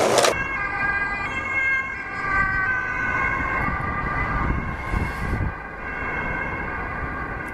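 Emergency vehicle siren sounding steadily over low street traffic noise.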